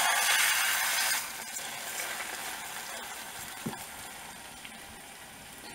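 Chicken breast frying in hot coconut and vegetable oil in a tall saucepan: a hissing sizzle, loudest for the first second as the meat goes in, then settling and fading to a quieter sizzle.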